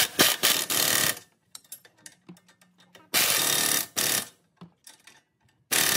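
Impact wrench hammering the 21 mm strut-to-knuckle nuts tight on a front strut, in three rattling bursts: one at the start, a second of about a second in the middle, and a short one at the end.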